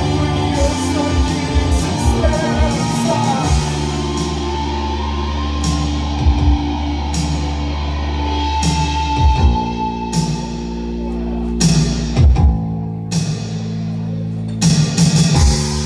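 Live post-punk band music: electric guitar and a steady low bass drone under a woman singing, with drum hits that grow sparser in the second half.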